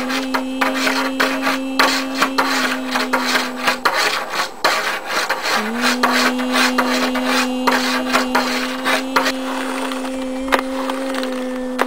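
A person humming one steady low note. It breaks off about four seconds in and comes back near six seconds with a short upward slide. Over it, a hand rubs and scratches across a hard surface, making many small scrapes and taps.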